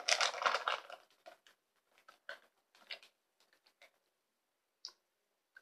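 A brief rustling burst close to the microphone, then scattered faint clicks and crackles.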